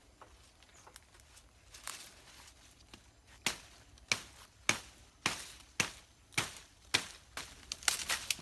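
Small sticks of wood being chopped: about ten sharp, evenly spaced strikes, roughly one every half second, starting about three and a half seconds in, after a few fainter knocks and rustles.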